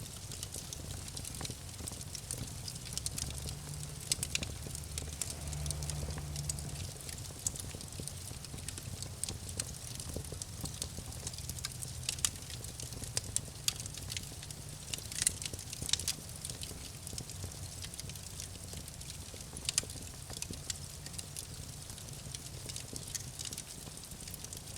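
Campfire crackling, with irregular sharp pops and snaps scattered throughout over a low, steady rumble.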